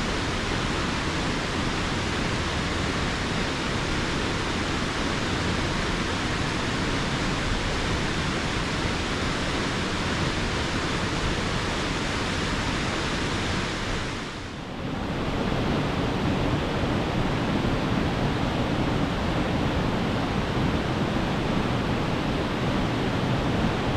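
Waterfall: a steady, loud rush of falling water. It dips briefly about fourteen seconds in, then comes back slightly deeper.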